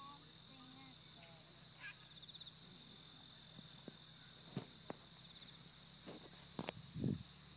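Insects chirping in a steady, high, unbroken drone. A few sharp clicks and a short low thump come near the end.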